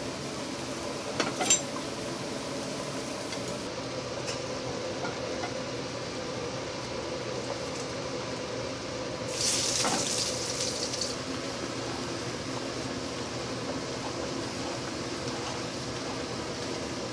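Wooden spoon stirring a thick flour-and-milk white sauce in a stainless steel saucepan, with two sharp knocks of the spoon against the pot about a second in and a louder wet burst about nine seconds in that lasts a couple of seconds, over a steady background hum.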